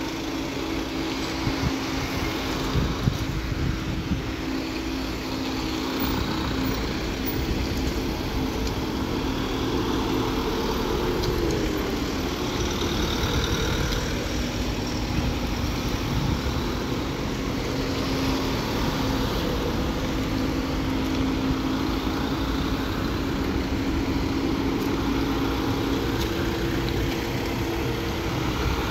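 Engines of ambulance vans running at low speed as a column of ambulances moves off. A steady, continuous engine drone.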